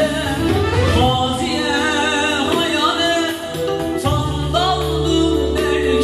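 Singing of a Turkish song, with a wavering, ornamented vocal line over Korg electronic keyboard accompaniment holding sustained chords.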